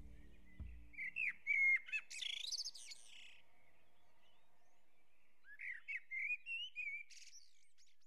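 Birdsong: two bursts of quick whistled chirps with sliding pitch, the first about a second in and the second around six seconds in. The tail of a sustained low music note fades out in the first second.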